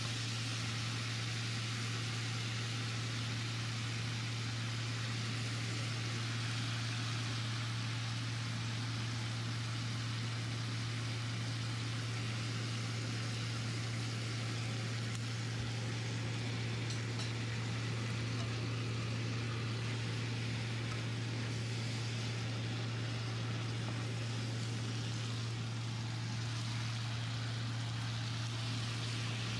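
Vegetables sizzling steadily in a hot wok while being stir-fried, over a constant low hum.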